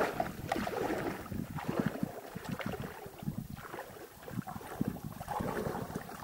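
Shallow river water sloshing and splashing around a person's legs as they wade out from the shore, with wind buffeting the microphone.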